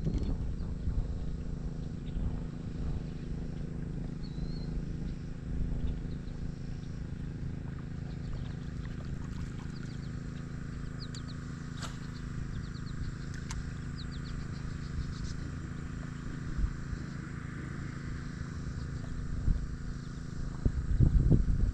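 Boat motor running with a steady hum, and a few faint high chirps about halfway through.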